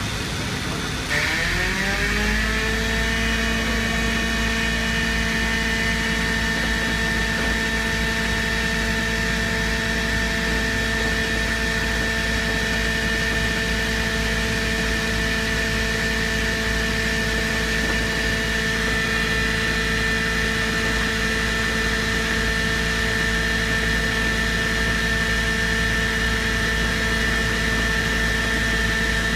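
Air-powered vibrator cleaning an SCR catalyst chamber: it spins up with a rising whine about a second in, then runs at a steady pitch with a high ringing tone and low rumble, shaking dust loose.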